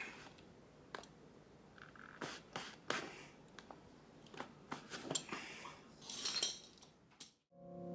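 A leather belt being pulled out of the loops of a pair of jeans: denim rustling with small clicks, then a longer rasping slide of the belt through the loops from about five seconds in. A low music tone begins at the very end.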